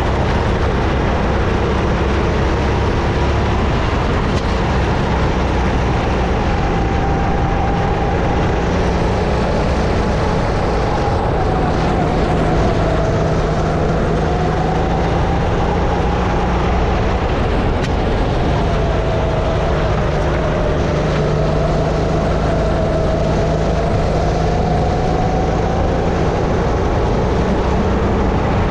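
Sodi RX-8 rental kart's 270cc single-cylinder four-stroke engine running under load, its pitch dipping and climbing again several times as the kart lifts off and gets back on the throttle. Heavy wind rush on the helmet-mounted camera runs under it.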